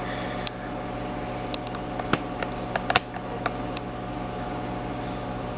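GE microwave oven running with a steady hum. Several short, sharp clicks are scattered over it, mostly between one and four seconds in.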